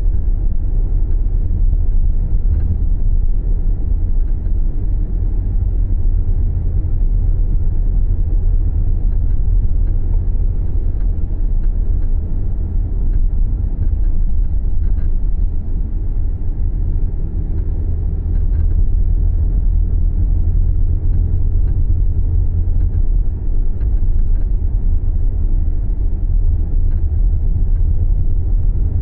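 Subaru Levorg being driven: a steady low rumble of road and drivetrain noise, with a few faint ticks here and there. This is the driving noise in which the owner hears an abnormal noise.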